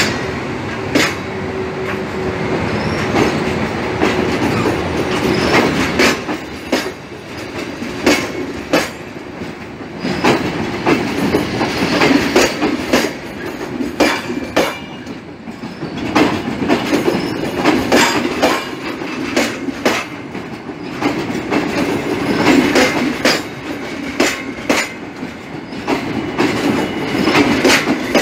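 Passenger coaches of a PKP Intercity train rolling past at low speed, their wheels knocking over rail joints in quick pairs of clicks over a steady rumble, with now and then a faint wheel squeal.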